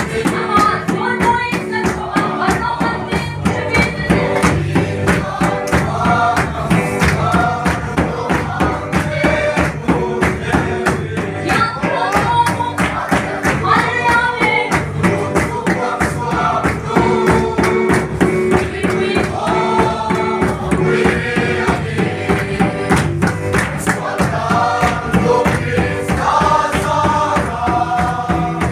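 Music: voices singing a gospel song over instrumental backing with a steady, fast drum beat.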